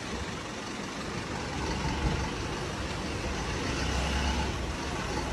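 Isuzu refrigerated light truck's diesel engine running as the truck drives slowly past, with a low rumble that grows louder about two seconds in.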